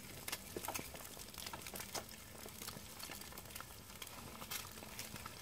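Eggs frying in a clay pan over a wood fire: a steady sizzle with scattered, irregular crackles and pops.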